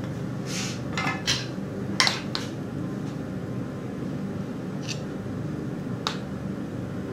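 A metal spoon scraping and clinking against a frying pan as sauce is spooned out. A quick cluster of short scrapes comes in the first couple of seconds and two more later, over a steady low hum.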